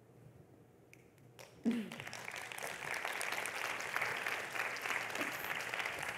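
Audience applauding, starting about a second and a half in and then holding steady after a quiet moment of room tone.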